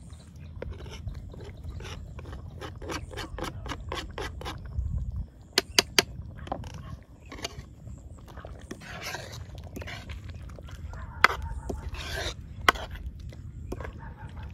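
A quick run of scrapes and taps as chopped coriander is cleared off a plastic cutting board into the curry, then a steel ladle stirring in a steel kadhai, with a few sharp metal clinks against the pan. A low steady rumble runs underneath.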